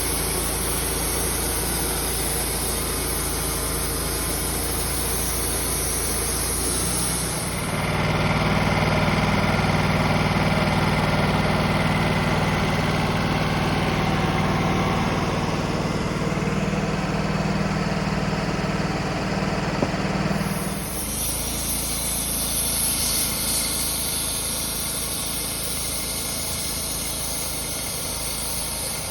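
Wood-Mizer LT28 portable band sawmill's engine running at idle, then throttling up about seven seconds in and running louder and higher for about thirteen seconds while the blade cuts through an oak log, before dropping back to idle.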